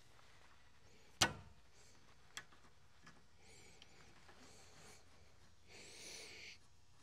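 Metal clinks of tools and bolts at a truck's rear brake caliper while its bolts are threaded back in: one sharp clink about a second in, a lighter one a second later, then soft rustling.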